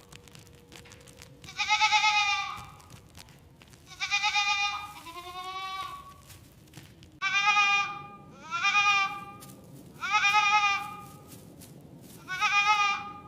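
Goats bleating repeatedly: about seven separate bleats, each with a quavering pitch, coming every second or two. One softer, lower bleat follows closely after another near the middle.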